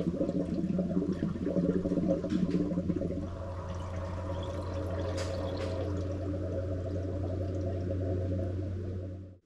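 Antifreeze-and-water coolant being poured into the radiator, gurgling as the cooling system fills. It is busier for about the first three seconds, then settles into a steadier pour, and stops abruptly just before the end.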